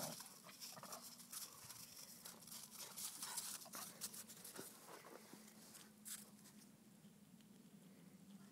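Faint, irregular crunching and scuffing of footsteps in snow, thinning out after about six seconds.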